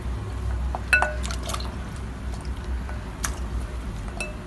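Goat trotters dropped into water in an aluminium pressure cooker: wet splashes and plops, with a glass bowl clinking against the cooker a few times, the sharpest knock a little past three seconds, over a low steady hum.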